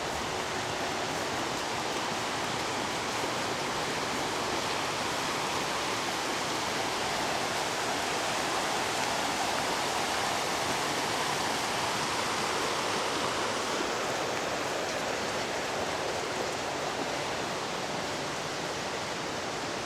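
River water rushing steadily, a continuous even noise.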